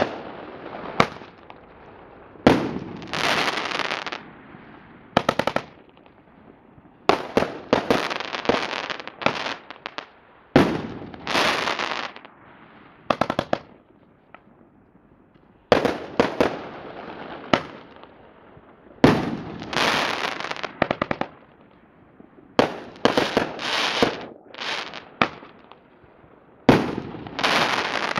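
A 500-gram multi-shot aerial repeater firework cake fires shot after shot, every second or two: sharp launch thumps and bangs as shells break overhead. Many breaks are followed by a second or more of dense crackling.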